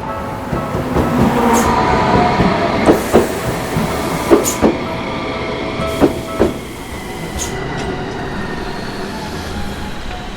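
Tokyu Setagaya Line train passing over the level crossing, its wheels clacking over the rail joints in three pairs of sharp clicks about a second and a half apart. A steady ringing tone, likely the crossing's warning bell, sounds under it and stops about six and a half seconds in.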